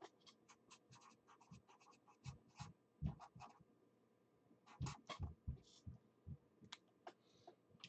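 Faint, irregular small clicks and scratching ticks, scattered through near silence.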